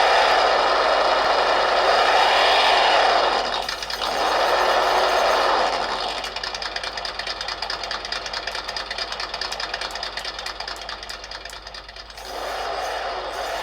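Simulated engine sound from a micro RC crawler's built-in sound module, heard through its small speaker: it revs with rising and falling pitch, drops to a quieter, rapidly pulsing idle about six seconds in, then revs up again near the end.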